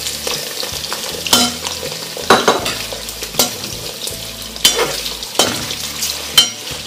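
Cubed potatoes frying in hot oil in a thick-bottomed kazan, a steady sizzle throughout. A metal spoon stirring them scrapes and knocks sharply against the pot several times.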